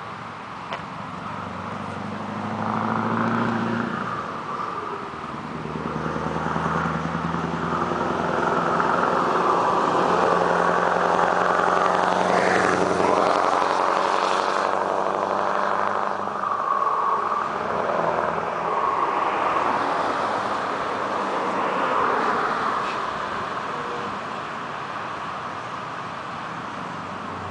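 Scania 164 580's 16-litre V8 diesel, loud, pulling a truck and trailer past. It grows louder as it approaches, its pitch drops as it goes by about halfway through, then it fades down the road.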